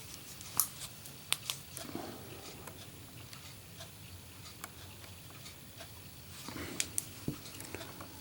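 Faint, scattered clicks and light taps of a metal Zippo lighter case being handled and turned in the hands, with a few sharper clicks in two clusters.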